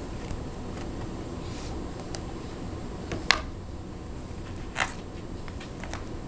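Steady low room hum with a few scattered small clicks and a short rustle; the sharpest click comes about three seconds in.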